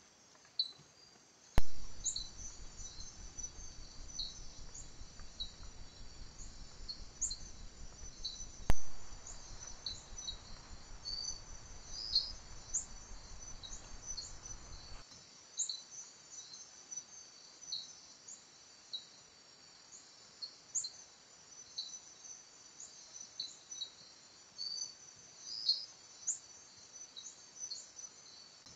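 A steady, high-pitched chorus of night insects, with many short chirps scattered through it. Two sharp clicks stand out, about a second and a half in and again near nine seconds, and a faint low hiss runs between the first click and about fifteen seconds in.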